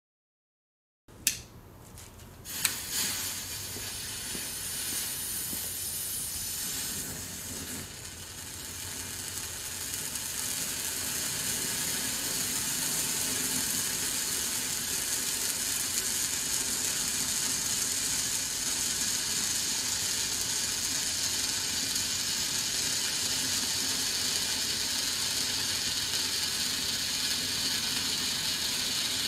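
Broekhoff Profi Torch Red, a category 1 red Bengal fire torch, burning with a steady high hiss. Two sharp clicks come about a second in, then the hiss builds over the first ten seconds or so and holds steady.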